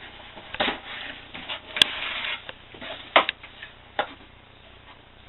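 Camcorder packaging being opened and handled: a few scattered knocks and clicks with a short burst of rustling near the middle, the sharpest click about two seconds in.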